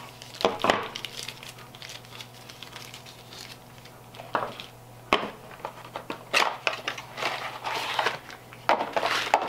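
Plastic packaging bags crinkling and rustling as a battery and charger parts are unwrapped and handled, with cardboard accessory boxes shuffled about. There are irregular bursts of rustling and a few sharp clicks, one clear click about five seconds in.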